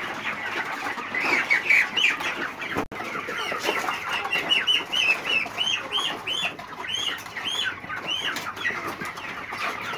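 A flock of young white chickens peeping: many short, high, arching cheeps over one another, broken briefly about three seconds in.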